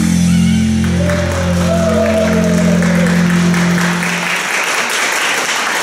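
A song's final held chord plays through a PA loudspeaker and cuts off about four seconds in. Audience applause builds under it and carries on after the music stops.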